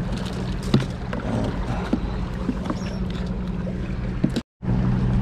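Steady low motor hum with a few sharp clicks and knocks as a fish is handled into a plastic cooler; the sound drops out completely for a moment near the end.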